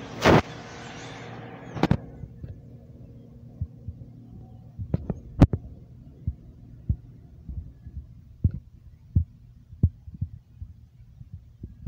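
Irregular soft thumps and clicks of a phone's microphone being handled, over a low hum. A hiss cuts off about two seconds in.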